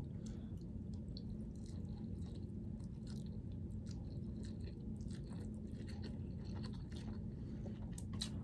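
A person chewing food, with many small irregular wet mouth clicks, over a steady low hum.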